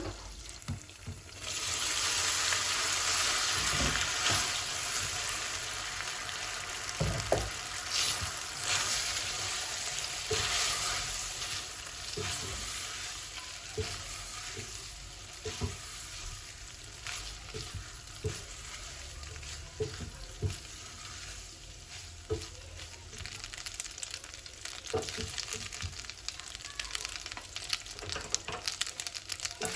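Food sizzling in a hot pan: the sizzle jumps up about a second and a half in and slowly eases, with scattered light knocks of a utensil being stirred in the pan.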